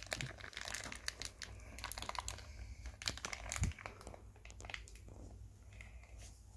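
Thin plastic wrapper crinkling as it is pulled open by hand, a run of faint crackles that thins out after about four seconds.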